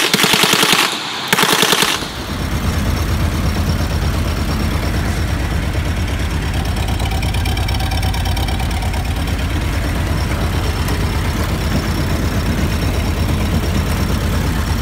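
A Browning .30-calibre machine gun converted to fire a propane and oxygen mix lets off two short rapid bursts in the first two seconds. After that, an engine idles steadily with an even low pulse.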